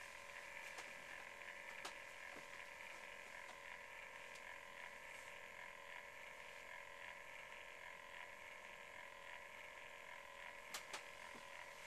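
Near silence: faint room tone with a steady electronic hum, broken by a few soft clicks, one about two seconds in and two close together near the end.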